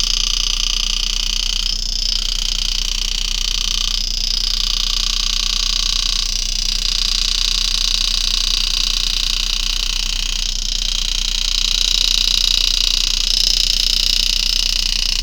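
Power-assisted engraving handpiece buzzing steadily as the graver cuts a spiral scroll into a coin, with faint regular breaks about every two seconds, over a low electrical hum.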